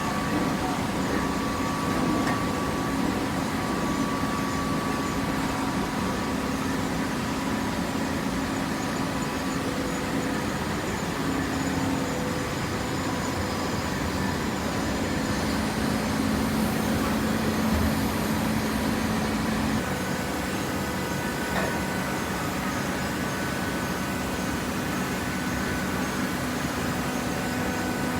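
Horizontal hydraulic cardboard baler running, a steady machine noise with a hum from its hydraulic power unit that shifts in tone about two-thirds of the way through.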